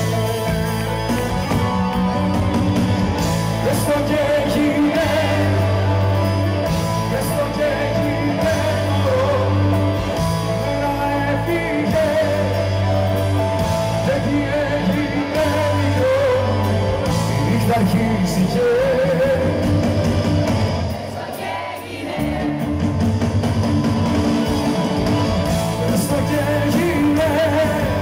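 Greek pop-rock song played by a band with electric guitars, bass and drums, a male singer singing over it. The band drops back briefly about three-quarters of the way through, then comes back in full.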